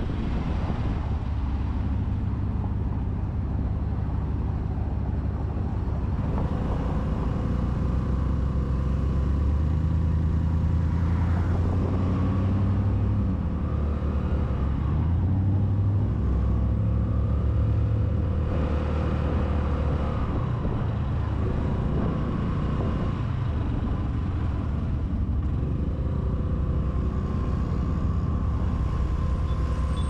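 Honda Navi scooter's small single-cylinder engine running under way, its pitch rising and falling as it speeds up and slows, over a steady rush of road noise.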